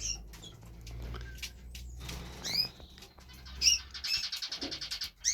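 Small cage birds in a canary birdroom calling: a few short, falling chirps, then a fast, buzzy trill about four seconds in, with a low hum beneath.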